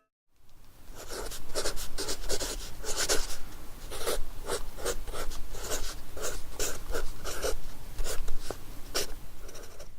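Rapid rough scratching strokes, about three a second, starting about half a second in and running at an even loudness.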